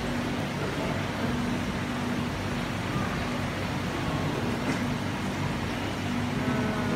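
Steady low hum and rumble of aquarium machinery, such as tank pumps and filters, with an even hiss over it.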